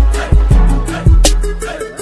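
Background music with a steady beat: deep held bass notes and sharp drum hits.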